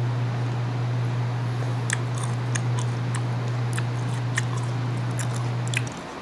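Crunchy chewing of raw green mango, with sharp crisp crunches and mouth clicks coming several times a second from about two seconds in. Under it runs a steady low hum that stops near the end.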